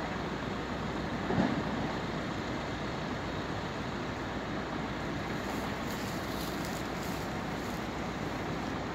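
Steady outdoor background noise with wind on the microphone, and a brief louder bump about a second and a half in.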